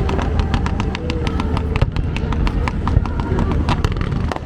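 Fireworks crackling and popping: many sharp, irregular pops a second over a steady low rumble.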